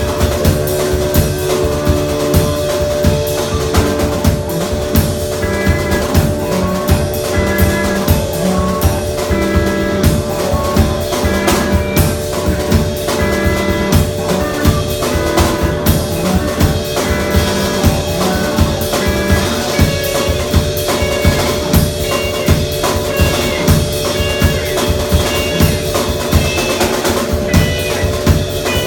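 Live music: a drum kit playing a steady beat under sustained droning tones that hold throughout.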